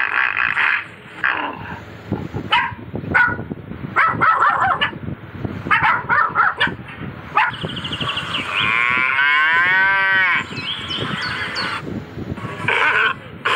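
A string of short animal calls, then one long call that falls in pitch about eight seconds in, and more short calls near the end.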